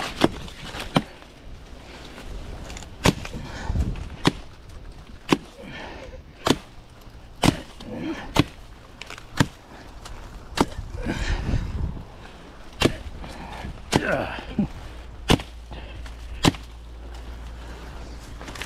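A dull machete chopping into a banana plant's trunk: a sharp whack about once a second, some fifteen strokes in all, with a longer pause near the middle.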